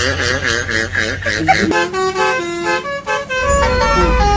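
A wavering, warbling tone, then from about two seconds in a telolet Basuri musical bus horn playing a tune in held notes that step up and down, over a low hum.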